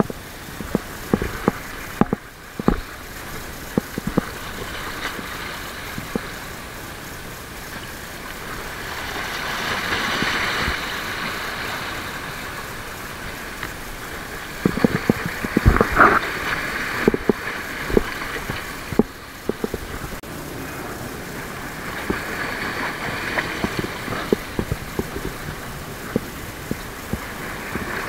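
Rough sea surging and washing over shore rocks, swelling louder twice, with scattered sharp knocks and clicks from handling gear and bait close by.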